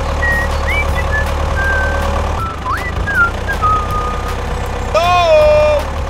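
Tractor engine running steadily under a high whistled line of short gliding notes. About five seconds in, a brief call with a falling pitch.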